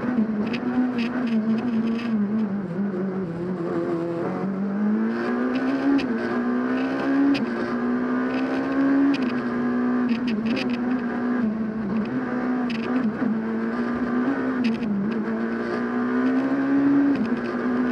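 Rally car engine heard from inside the cabin at stage pace, its note repeatedly climbing and dropping as the car accelerates and slows, with sharp clicks and knocks scattered through it.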